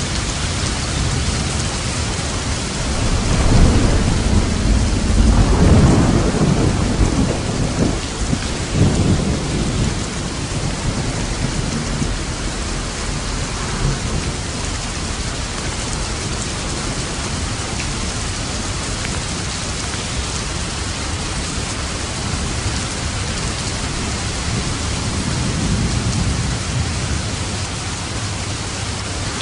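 Steady heavy rainfall with a rolling peal of distant thunder rumbling for several seconds a few seconds in, and a fainter rumble near the end.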